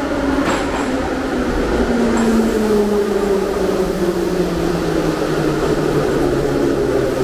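Metro train pulling into the station and braking, the whine of its motors sliding steadily lower in pitch as it slows, over the rumble of the wheels on the rails.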